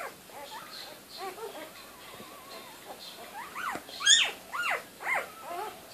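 Newborn golden retriever puppies squeaking: a string of short, high-pitched squeaks that rise and fall in pitch, faint at first and loudest about four seconds in.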